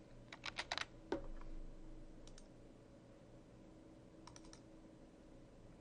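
Faint computer keyboard keystrokes and mouse clicks: a quick run of clicks in the first second, a single click, then a pair, and a short burst of about four clicks later on.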